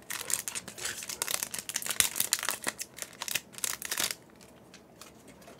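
Foil booster pack wrapper of a Yu-Gi-Oh card pack crinkling and crackling in the hands as it is opened, with many sharp crackles; it stops about four seconds in.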